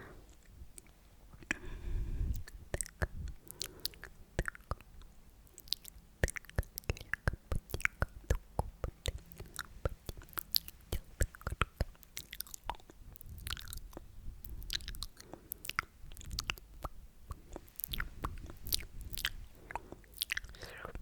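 Close-miked sticky mouth sounds: rapid wet clicks and pops of the lips and tongue, coming thickest in the middle stretch.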